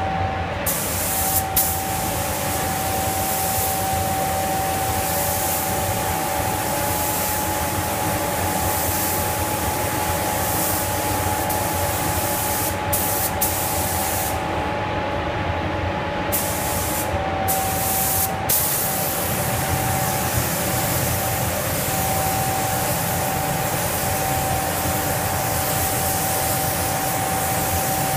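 Compressed-air paint spray gun hissing as it sprays, cutting out briefly several times when the trigger is let go, with a longer pause about halfway. Underneath is a steady drone with a constant mid-pitched tone.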